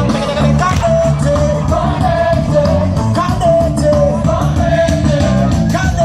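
Loud live band music with singing and a steady beat.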